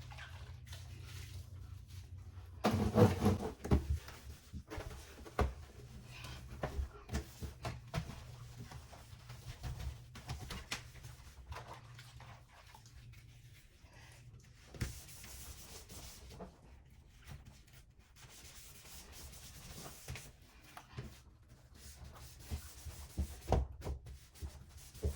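A wet towel rubbing and wiping the inside surfaces of a refrigerator, with scattered knocks and a louder clatter about three seconds in. A low steady hum runs underneath.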